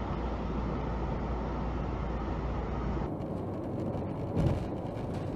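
Steady car noise from a dash camera: a stopped car's low, even hum, then, after a sudden change about three seconds in, a car driving on a highway with steady tyre and wind noise. A brief low sound comes a little past four seconds.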